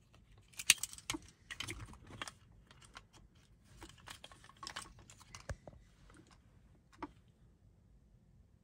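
Light clicks and rattles of a Volkswagen flip key and its metal key ring being handled and slotted into a key-programming aerial. They come thickest in the first couple of seconds, then as a few scattered single clicks.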